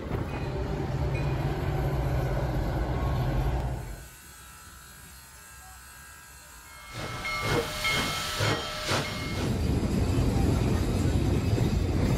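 A train rushing past with a heavy rumble. After a quieter stretch, a steam locomotive's exhaust and steam hiss come in, with its whistle sounding for a couple of seconds.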